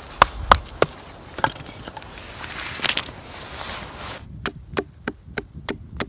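Sharp knife cuts into wood, about three a second, as a wooden spoon blank is carved against a log. Before that, sharp snaps and a hiss from a small campfire.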